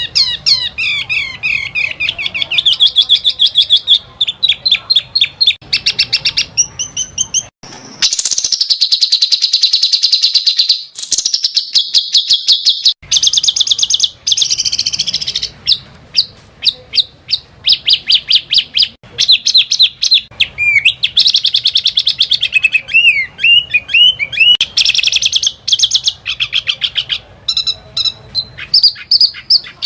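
Small songbirds singing rapid-fire 'tembakan' song: fast, high-pitched trills and chattering runs of repeated notes. The phrases come in short clips spliced back to back, each one starting and stopping abruptly.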